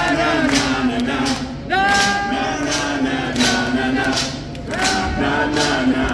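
Live music from an outdoor stage: sung vocals with several long held notes over a steady beat of sharp hits about twice a second.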